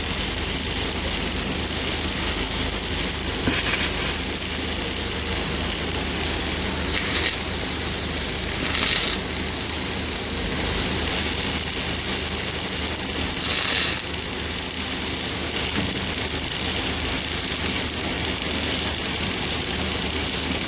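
An engine idling steadily, with a few short hisses about three and a half, seven, nine and fourteen seconds in.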